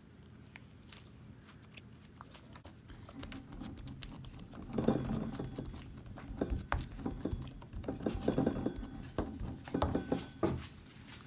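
Hands squeezing and poking a lump of homemade slime, making irregular sticky squelches and clicks that grow louder and busier about halfway through.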